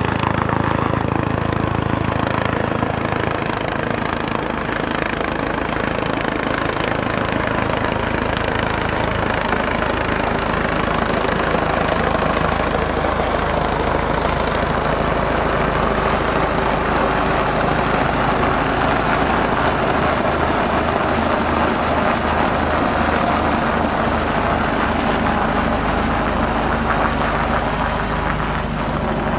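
Medical helicopter running close by: a steady engine whine with a rhythmic low beat from the rotor blades.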